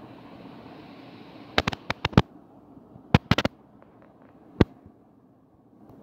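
A dozen sharp, loud pops in quick clusters: about five in a row, a second burst of four a second later, then a single one, over a steady background hiss.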